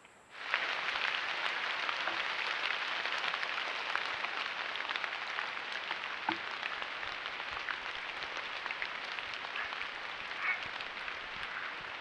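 Steady rain falling on pond water and leaves: an even patter of many drops that starts suddenly about half a second in.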